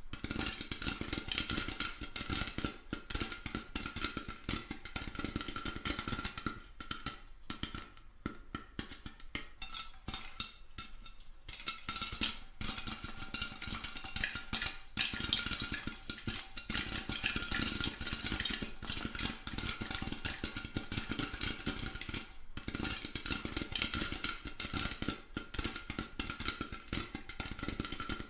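Popcorn popping: a dense, rapid crackle of many small pops, over a steady high hum.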